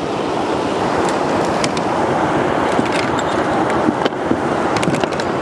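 Fast, swollen river water rushing past an inflatable boat as a steady, even rush, with a few light clicks.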